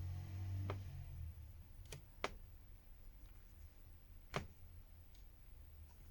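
A few small sharp clicks and taps from a smartphone being handled during repair, four in all, the loudest about four seconds in, over a faint low hum.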